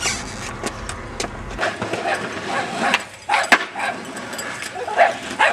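Skateboard clacks and knocks on concrete: a few scattered sharp hits, the loudest a crack about three and a half seconds in, with brief bits of voice between them.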